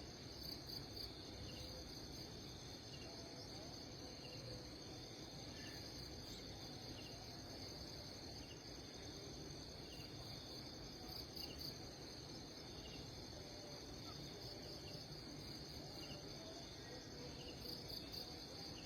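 Crickets or other insects calling in a steady, continuous high chorus, with faint short chirps repeating about once a second over low background noise.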